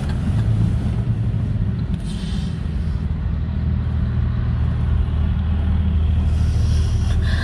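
Steady low rumble of a car's engine and road noise heard inside the cabin.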